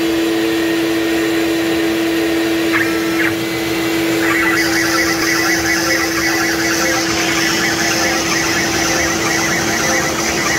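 Desktop CNC router's spindle running with a steady tone while a small drill bit bores into a wooden workpiece. From about four seconds in, a higher, gritty cutting noise joins the spindle sound.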